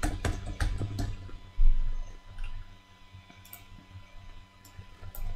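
Computer keyboard typing: a quick run of keystrokes, then one loud dull thump about a second and a half in, followed by a few scattered clicks.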